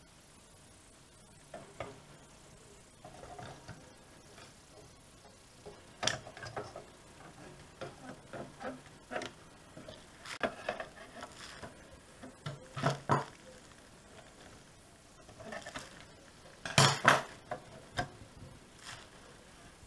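Irregular clicks, taps and knocks of a VW RNS510 car radio's circuit board and sheet-metal chassis being handled and fitted together, with louder clanks about six, thirteen and seventeen seconds in.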